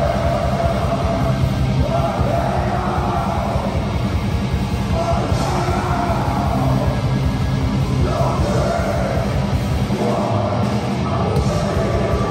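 Black metal band playing live, recorded on a phone from the crowd: fast, dense drumming and distorted guitars under several long, harsh screamed vocal lines.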